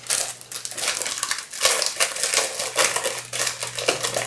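Stiff paper or cardstock crinkling and rustling as it is handled, in a dense run of small crackles and clicks over a faint steady hum.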